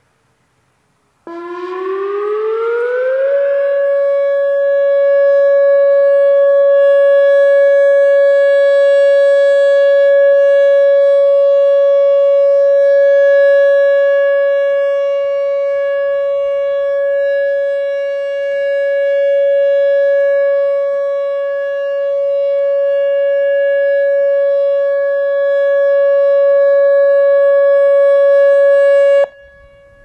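Whelen WS-2000R electronic outdoor warning siren sounding its steady Alert tone. About a second in it glides up in pitch for about two seconds, then holds one steady note for over twenty seconds, swelling and fading as the rotating four-horn speaker head turns. Near the end it cuts off suddenly, leaving a brief echo.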